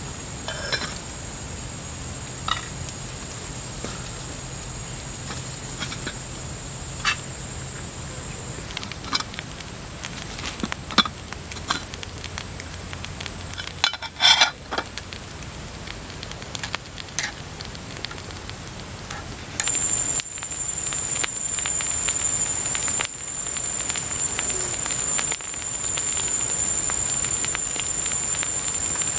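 Campfire crackling under a pot of simmering noodles, with scattered clicks of metal cookware and one louder clatter about halfway through as the pot lid is lifted. A steady high-pitched insect drone runs behind and grows louder in the last third.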